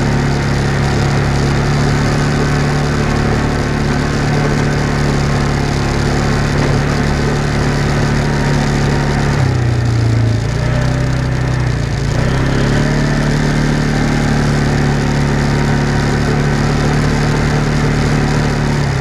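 Off-road vehicle's engine running steadily while driving along a dirt trail, with a constant rush of noise over it. About halfway through the engine note drops for a few seconds as it slows, then picks back up.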